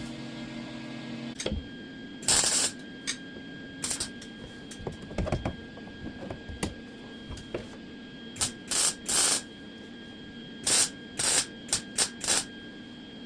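MIG welder laying short tack welds on sheet steel: about ten brief crackling bursts, a pair early on and a quick run of them in the second half.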